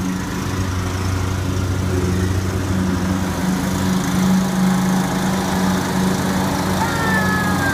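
John Deere riding lawn mower's engine running steadily as the mower drives across the lawn.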